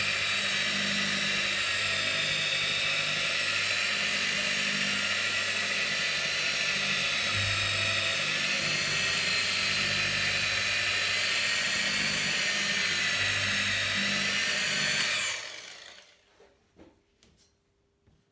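Electric car polisher with a foam pad running steadily on the clear coat, a high machine whine. About fifteen seconds in it is switched off and spins down, its whine falling in pitch, followed by a few faint taps.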